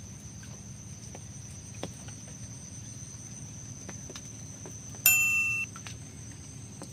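Insects trilling steadily at a high pitch. About five seconds in comes a loud electronic chime, half a second long, that stops abruptly.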